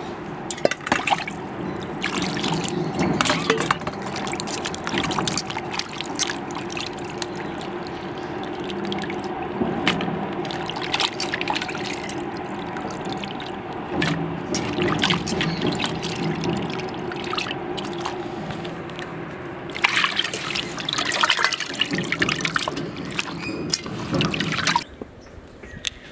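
Pieces of beef on the bone being washed by hand in a bowl of water: repeated splashing, sloshing and trickling, with many sharp splashes. It stops shortly before the end, leaving quieter background sound.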